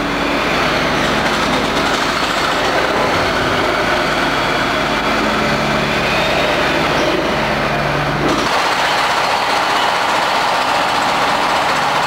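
Electric shunting locomotive running while coupled to a sleeping car, a loud steady mechanical noise with a few steady tones in it. The sound changes abruptly about eight seconds in.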